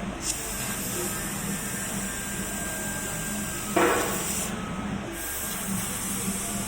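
CNC laser cutting machine running: a steady hiss with a low hum under it, and a brief louder rush about four seconds in.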